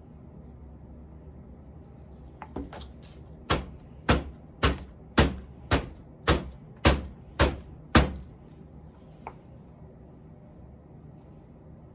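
A plastic cup mold filled with wet concrete knocked down on a tabletop nine times in a row, about twice a second, to bring air bubbles up out of the mix. A few fainter knocks come before the run and one after it.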